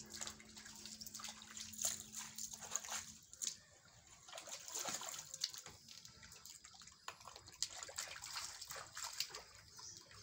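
Water sloshing and dripping in a plastic basin as a python is washed by hand in it, with scattered small splashes as the snake is lifted and lowered.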